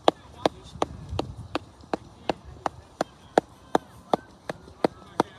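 A steady, evenly spaced clicking or knocking, about three sharp clicks a second.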